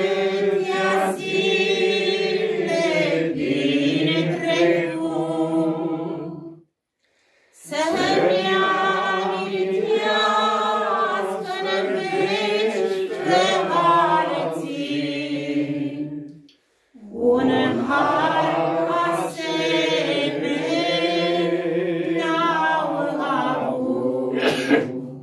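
A small group of men singing a Romanian hymn together, unaccompanied, in slow unison. Three long sung phrases, with two short breaks for breath between them.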